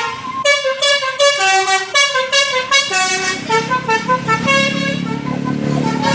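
Basuri multi-tone telolet horn on a tour bus playing a fast tune of short notes that jump up and down in pitch. The notes fade about halfway through as a low rumble comes in.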